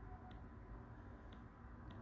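Near silence: faint room tone with three soft, high clicks at uneven intervals.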